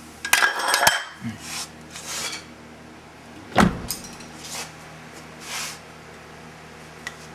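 Car door hardware being worked on the rear door of a 2006 Subaru Legacy Outback: a rattling scrape with a metallic ring, then one sharp, heavy clunk about three and a half seconds in, like the latch or door, followed by softer rustles. This is the door being tried after the outside-handle repair.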